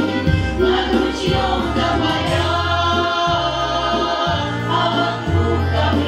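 A women's folk choir singing a Russian folk song in harmony, over an instrumental accompaniment with a bass line that moves note by note.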